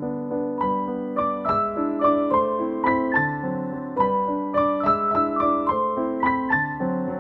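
Background piano music: a steady run of single notes, about three a second.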